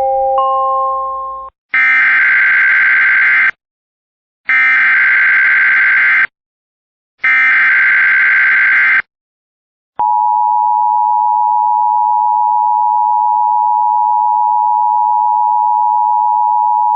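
Emergency Alert System sounds. A short rising chime comes first. Then three bursts of SAME header data, each a harsh digital screech of about two seconds with a one-second gap between them. About ten seconds in, the steady EAS attention tone begins, marking the start of a new alert.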